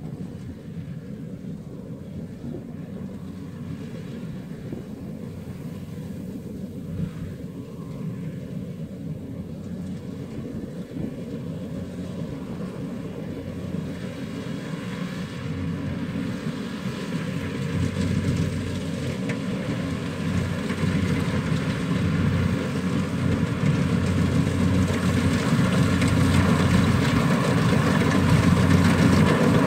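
Rice combine harvester's engine running steadily, growing louder as the machine drives closer.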